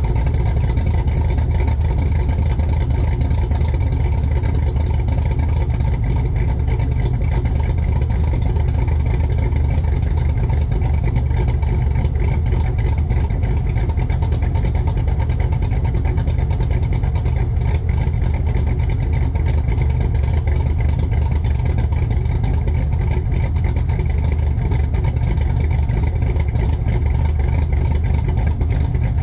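LQ9 6.0 L V8 fitted with a Norris camshaft, idling steadily after a cold start, its exhaust pulsing evenly.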